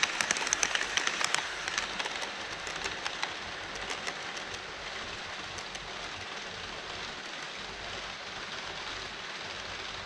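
HO-scale E5 series Shinkansen model running over a model truss bridge, its wheels rattling and clicking on the track. The rattle fades after about two seconds as the train clears the bridge, leaving a steady hiss.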